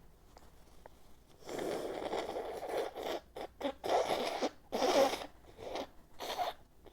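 A woman blowing her nose hard, probably into a tissue: one long blow about a second and a half in, followed by several shorter blows in quick succession.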